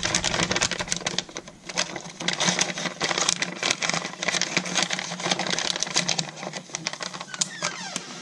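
Rapid irregular clicking and crackling of bait packaging and papers being handled.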